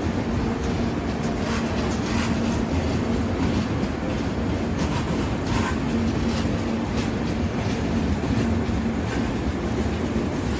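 Indian Railways passenger train's coaches rolling past: a steady rumble of wheels on rail, with scattered clicks and clatter as the wheels cross rail joints and a low steady hum underneath.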